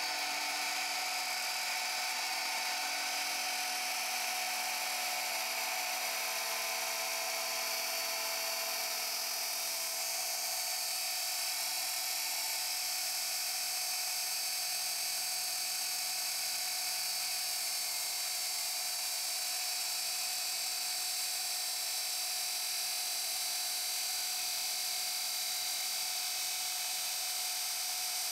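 Electric abrasive chop saw with a 400 mm cut-off disc grinding steadily and slowly through a steel profile tube. The disc is glazed smooth, so it melts the metal rather than cutting it cleanly. The grinding grows hissier about ten seconds in.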